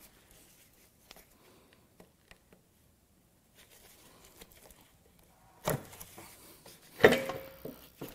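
Faint small clicks and rustling of hands working at wiring on the engine. Then a sharp knock about five and a half seconds in and a louder metallic clunk with a short ring about seven seconds in, as the upper intake plenum of the Ford 4.9L 300 straight-six is worked loose from the engine.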